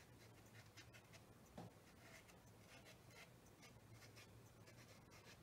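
Near silence: a paintbrush faintly stroking watercolour paper, with one small tap about one and a half seconds in.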